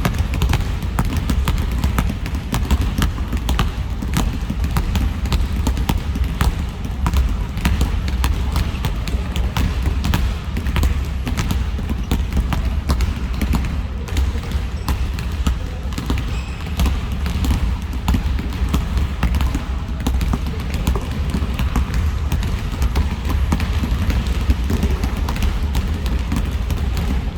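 Many basketballs dribbled at once on a gym floor: a dense, unbroken patter of overlapping bounces.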